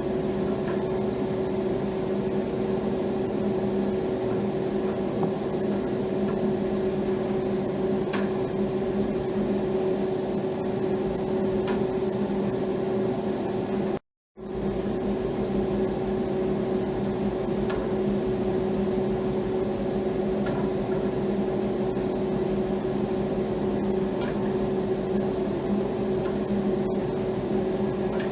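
Steady electrical or mechanical hum of two constant low tones, with no melody. It cuts out completely for a moment about halfway through, then resumes unchanged.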